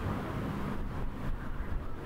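Outdoor village ambience: a steady low rumble and hiss, with a faint hum that fades out a little past halfway.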